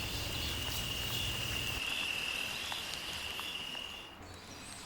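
Cricket trilling in one steady high tone that stops about four seconds in.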